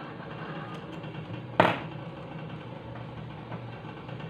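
A steady low mechanical hum, with one sharp knock about a second and a half in.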